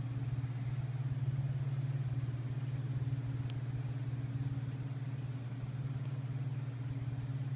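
Cat 257 skid steer's diesel engine idling steadily, with a brief high click about three and a half seconds in.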